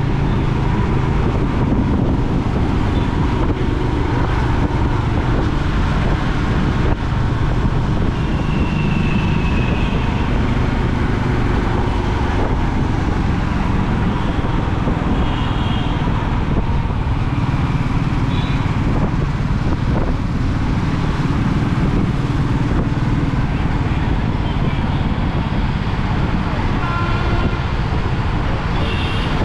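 Royal Enfield Meteor 350's single-cylinder engine and exhaust running steadily at cruising speed, with wind and road noise around it.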